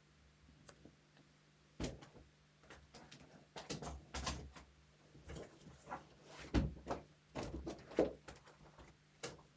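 Large softcover music books being put down and others picked up: irregular knocks and thumps with some paper rustling.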